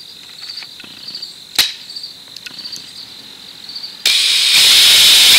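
Crickets chirping steadily in a fast pulsing trill, with one sharp click about a second and a half in. Near the end a loud hiss of noise starts suddenly and drowns them out.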